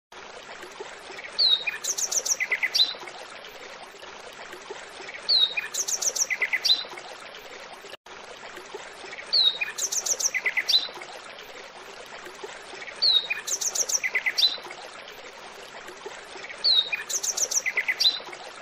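Bird chirps: a short phrase of a down-slurred whistle followed by quick chirps and a rapid run of ticks, repeated the same way five times about every four seconds over a steady hiss.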